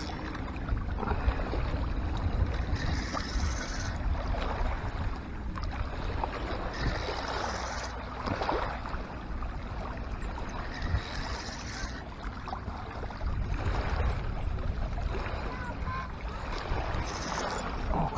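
Wind buffeting the microphone in uneven gusts over small waves lapping on a pebble lakeshore.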